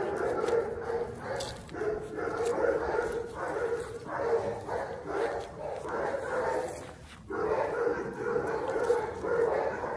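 A Doberman whining and yelping in short repeated bursts, about two a second, with a brief pause about seven seconds in, while tied rear to rear with its mate after mating.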